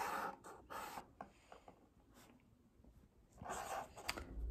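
Faint marker strokes scratching on paper as an outline is drawn, then a near-silent pause. Near the end, a crayon rubs on paper as a drawing is coloured in.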